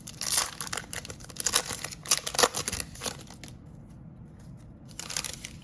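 Plastic cellophane wrapper of a trading-card pack crinkling and tearing as it is ripped open, in a run of rustling bursts over the first three seconds and one more burst near the end.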